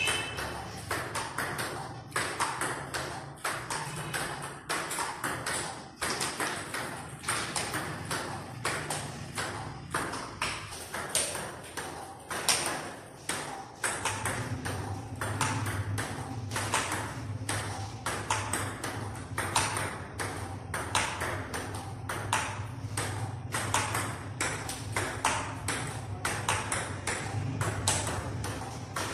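Table tennis balls fed one after another from a basket in a multiball drill: an even run of sharp clicks as the balls are struck by the paddle and bounce on the table, a few every second. A low steady hum comes in about halfway through.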